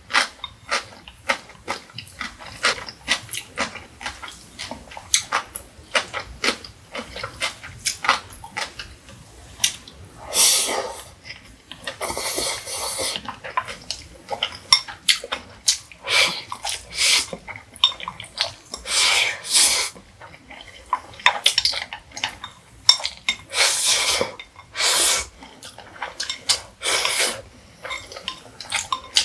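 A person eating Indomie mi goreng noodles from a glass bowl: wet chewing and mouth clicks, chopsticks tapping the glass, and several drawn-out slurps, the longest about halfway through.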